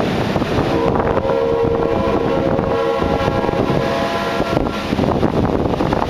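Train horn sounding one long blast of several tones at once, starting about a second in and stopping after about four seconds, over heavy wind noise on the microphone.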